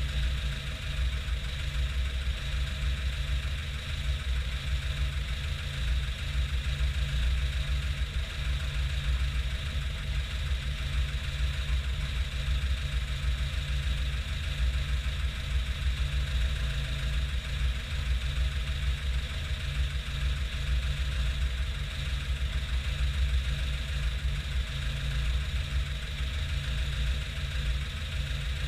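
1992 VAZ 21053's 1500cc four-cylinder engine, fed by a 2105-20 carburettor, idling steadily.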